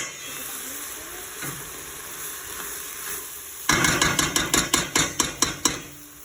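Onion and vegetables sizzling softly in a soup pot; from about four seconds in, a utensil stirs them for two seconds, a quick run of sharp scrapes and knocks against the pot.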